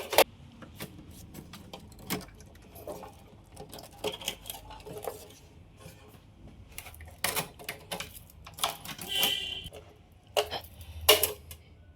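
Irregular metal clicks, knocks and clatter as parts of a Dell PowerEdge R730 rack server's metal chassis are handled and worked loose by hand, with a brief ringing scrape about nine seconds in.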